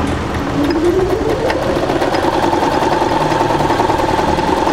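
Riccar 2200 computerised sewing machine sewing a zigzag stitch. Its motor whine rises as it speeds up over the first couple of seconds, then runs steady with the fast even chatter of the needle.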